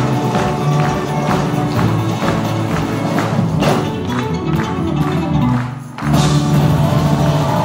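Live stage-show music with a steady percussive beat of about two hits a second. The music drops away for a moment near the end, then comes back louder.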